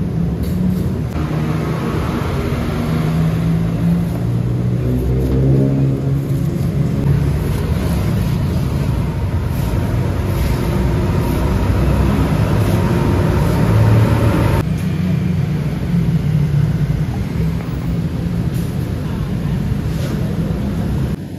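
Steady low engine rumble of motor traffic, with light knocks of a knife chopping spring onions on a wooden chopping board.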